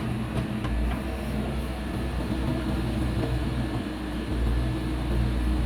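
Diesel engine of heavy earthmoving machinery running with a steady low drone, with a few light knocks in the first second.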